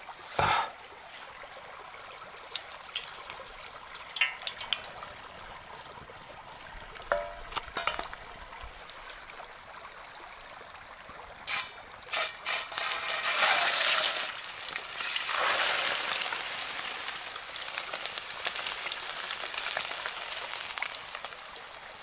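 Plastic bag crinkling as raw meat is unwrapped, then pieces of meat laid into a hot pan: a loud sizzle bursts out about thirteen seconds in and settles into steady frying.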